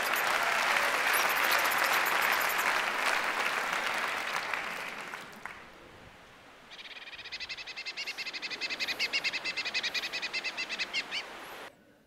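A large theatre audience applauding and laughing, dying away after about five seconds. After a short lull comes a blue tit's song: a high, fast trill of repeated notes, about four a second, lasting some four seconds.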